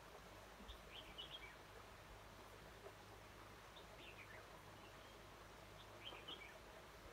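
Red-whiskered bulbul calling, three short, quick phrases of chirping notes, faint against a steady hiss.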